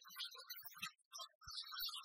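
Light background music of short, separate notes, with a brief gap about a second in.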